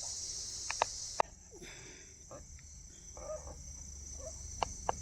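Steady high-pitched chorus of insects such as crickets. Several sharp clicks sound about a second in and again near the end. The chorus drops off suddenly just after the first clicks and carries on more faintly.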